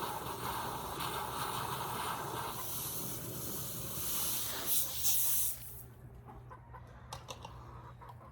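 Chickens clucking against a steady hiss, which cuts off about two-thirds of the way through, leaving a few faint clicks.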